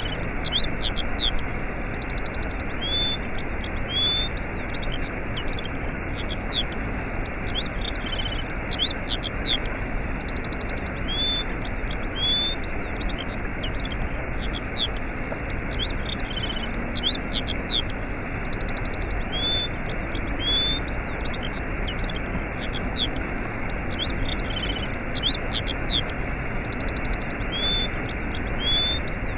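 Steady rush of a waterfall with small birds chirping and trilling over it; the same run of birdsong comes round again about every eight seconds, as a repeating loop.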